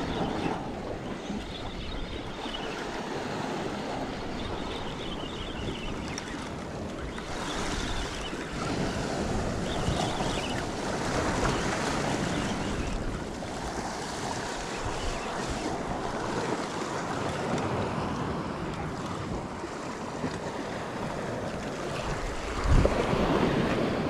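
Wind buffeting the microphone over the wash of sea waves around a boat: a steady rushing noise with small swells, and a short louder noise near the end.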